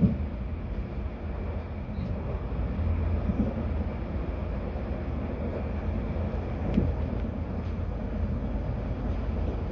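Moving passenger train heard from inside the carriage: a steady low rumble of the train running on the rails, with a few short knocks, one near the start and one about seven seconds in.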